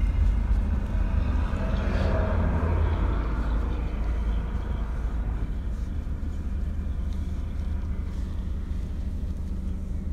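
Steady low rumble of a car's engine and road noise heard from inside the cabin, easing off slightly toward the end.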